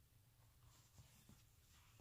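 Near silence: room tone with faint rustling and a couple of soft taps about a second in.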